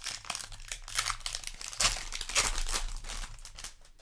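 Crinkling and crackling of a Magic: The Gathering play booster's plastic foil wrapper being handled, in dense irregular bursts.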